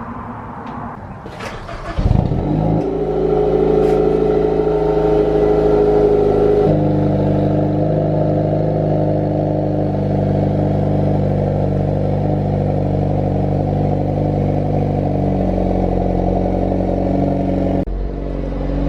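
Nissan 350Z's VQ35DE V6 with a Tomei exhaust starting up about two seconds in and then idling steadily. Its note changes about seven seconds in.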